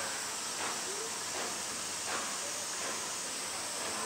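Steady high-pitched hiss, with faint indistinct sounds coming and going beneath it.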